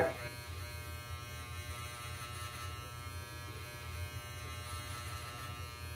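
Electric hair clippers buzzing steadily as they trim the hair around the ear.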